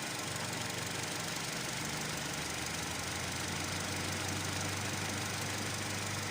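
Nissan Grand Livina engine idling steadily with a constant low hum, freshly top-overhauled and running without overheating.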